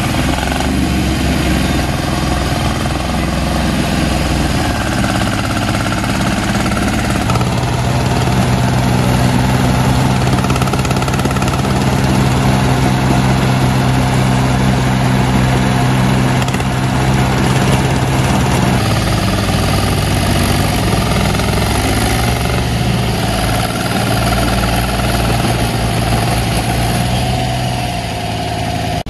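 Small diesel tractor engines running, with a VST Mitsubishi Shakti compact tractor pulling under load as it tows a second mini-tractor up out of a ditch. The engine note is steady, and strongest and most even from about 7 to 19 seconds in.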